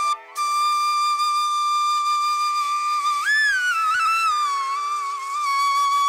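Background music: a single melodic line holding one long note, bending up in pitch about halfway through and settling back down.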